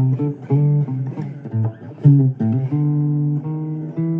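Blues guitar playing a run of single plucked notes, then holding one note for the last second or so.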